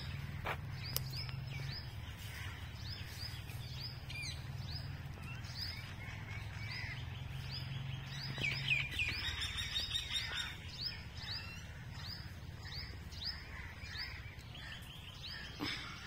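Small birds chirping, a short falling note repeated about twice a second, with a brief burst of busier chirping about halfway through. Under it a steady low hum that fades out about halfway.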